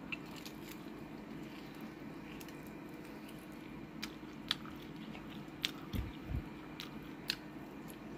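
Hands tearing apart crispy-skinned baked chicken: soft wet squishing with a few short, sharp crackles of the skin, and a couple of dull bumps about six seconds in. A steady low hum runs underneath.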